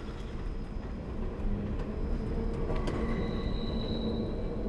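Steady low rumble of a moving vehicle, with a faint high whine for about a second, three seconds in.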